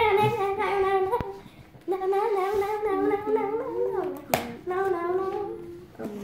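A child humming a wordless tune in three drawn-out phrases, with a sharp click about four seconds in.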